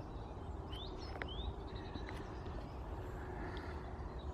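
Outdoor ambience: a few short rising bird chirps in the first second and a half, over a steady low rumble of wind on the microphone.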